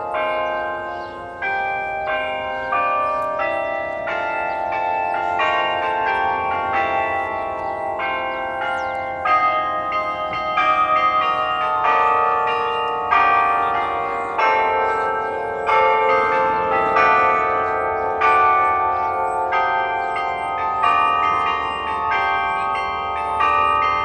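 The Delacorte Musical Clock playing a tune in bell tones: a steady melody of ringing notes, each one overlapping the last.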